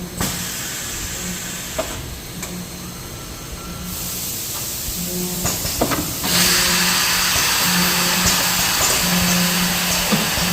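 Blister packaging machine running, with an on-and-off hum, a few sharp clicks and a hiss that gets much louder about six seconds in.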